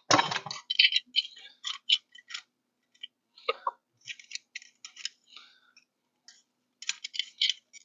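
Small metal hardware clicking and ticking as nuts are threaded onto bolts by hand: short, irregular clicks in little clusters.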